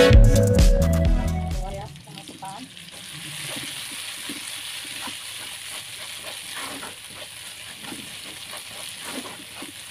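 Electronic intro music cuts off about two seconds in. Then chilli balado sauce with sliced onions sizzles steadily in a wok while a spatula stirs it, with soft scrapes throughout.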